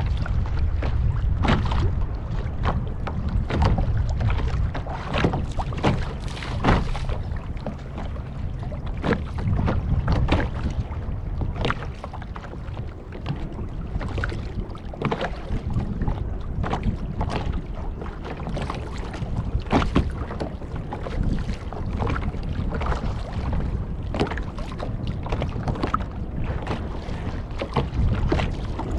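Water slapping against a kayak's hull in short, irregular splashes over a steady low rumble of wind on the microphone.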